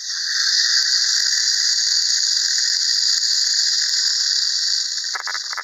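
Clockwork spring motor of a 1950s tin wind-up toy train running at speed, its spinning gear grinding against a flint to throw sparks: a loud, steady, high-pitched whir that starts suddenly and eases slightly near the end.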